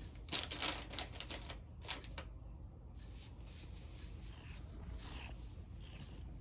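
Cat-treat bag being handled, faint crinkling with small sharp clicks as the crunchy treats shift and rattle inside, in clusters near the start and again about two seconds in.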